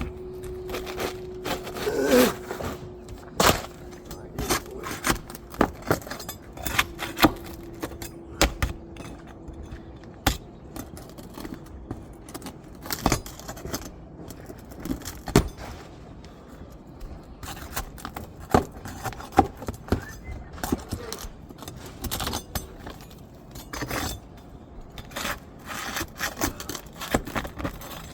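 Irregular metallic clicks, scrapes and knocks of a steel flat bar being worked under old asphalt shingles to pry them and their nails loose, the brittle shingles cracking and tearing.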